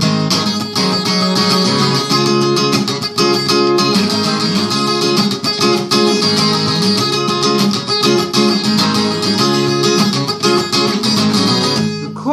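Acoustic guitar with a capo playing an instrumental break: a steady, rhythmic strummed chord pattern with no singing.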